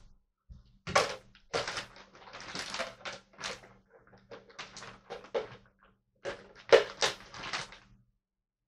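An irregular run of a dozen or so short knocking and rustling noises, some sharp and some longer, stopping about eight seconds in.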